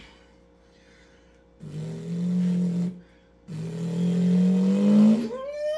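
A man's mouth imitation of a supercharged Dodge Hellcat V8: two low, revving engine notes, the second climbing slightly, then a rising supercharger blower whine near the end.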